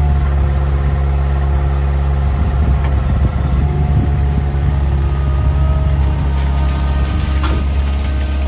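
John Deere 24A skid steer's engine running steadily at working speed. About two seconds in, its note turns ragged and wavers for a couple of seconds, as under load, and a few faint knocks are heard.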